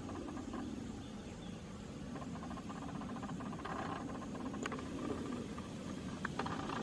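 Steady low outdoor background noise, with faint high chirping at times and two short sharp clicks near the end.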